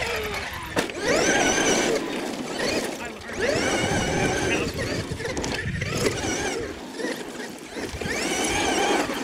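Traxxas X-Maxx RC monster truck's brushless electric motor whining as it is throttled up and eased off three times, each time rising and then falling in pitch, with tyres scrabbling through loose dirt. A sharp knock about a second in comes as the truck lands from a jump.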